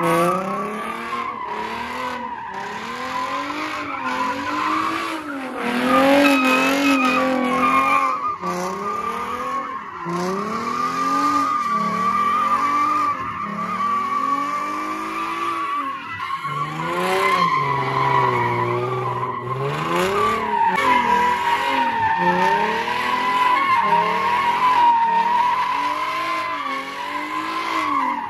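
A car spinning its tyres on the spot with a steady tyre squeal. Its engine revs rise and fall over and over, held lower and steadier for a few seconds past the middle.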